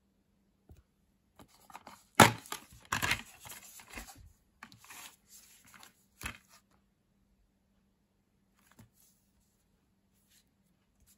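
Plastic DVD keep case being opened and handled: a sharp snap about two seconds in, then a few seconds of rustling and crinkling plastic, and another click a little later.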